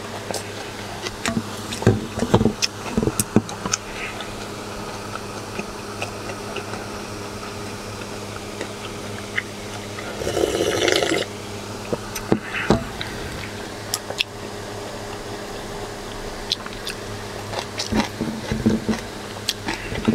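Eating sounds from a person having cold somen noodles: scattered sharp clicks of utensils against a bowl, chewing, and a one-second slurp about halfway through. A steady low hum runs underneath.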